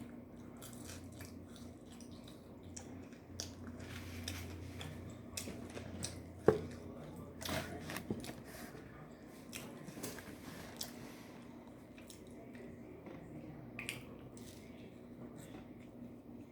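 A person chewing and biting food close to the microphone: irregular wet clicks and small crunches, one sharper click about six and a half seconds in, over a faint steady low hum.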